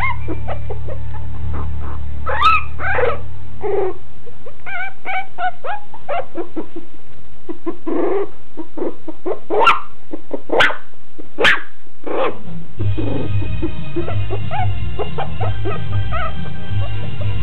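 Dog yips and whimpers, short high calls scattered through the first two thirds, over a music track with a steady bass that turns into a rhythmic beat near the end.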